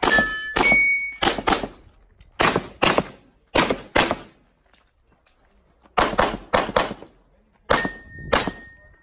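Pistol shots fired at a practical shooting stage, mostly as quick pairs, with a pause of about two seconds in the middle. A few hits are followed by a short metallic ring from steel targets.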